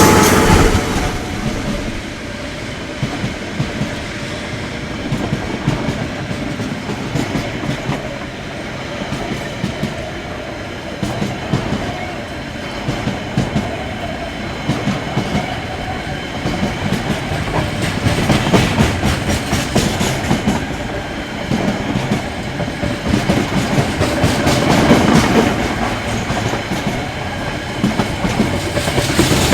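Freight train wagons rolling past, wheels clacking over rail joints in an uneven stream of clicks over a steady rumble, which swells louder twice in the second half.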